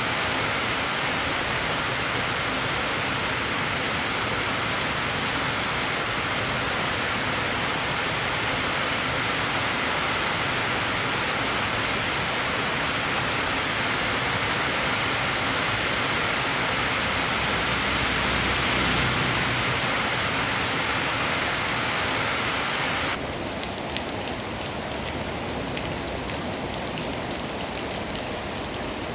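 Steady, even hiss of rain mixed with noise. About 23 seconds in it changes abruptly to a slightly quieter rain with scattered individual drop ticks, as if a different rain recording is cut in.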